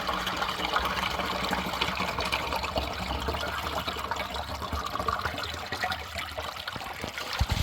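Water from a natural spring running and splashing steadily. A low thump comes near the end.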